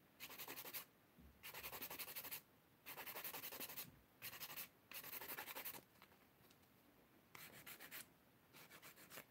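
Hand nail file rasping against acrylic stiletto nails in quick back-and-forth strokes, in about seven short, faint bursts with brief pauses between them, smoothing and refining the nail surface.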